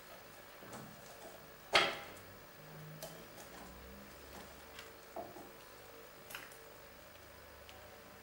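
Irregular light clicks and knocks of steering parts and a bolt being handled and worked by hand on a ride-on mower, with one sharp knock about two seconds in that is the loudest sound; a faint steady hum runs underneath.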